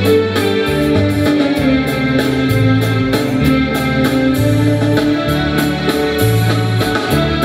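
Live band music for a slow couple's dance: a bass line stepping from note to note under sustained chords, with a steady beat of cymbal strokes.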